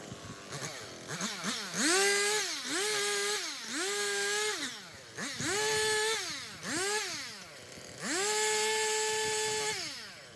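Stihl chainsaw revved to full throttle in about six short bursts, each dropping back toward idle between cuts, the last and longest hold near the end; the cutting footage is fast-forwarded, so the bursts come quicker and higher than in real time.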